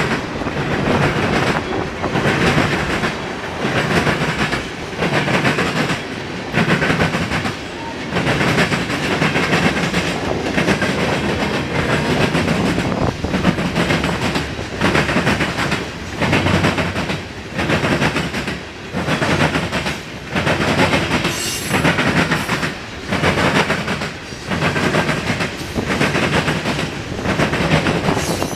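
Freight train's tank cars and covered hopper cars rolling past, their steel wheels clacking over the rail joints. The loudness swells and dips about once a second as the cars go by.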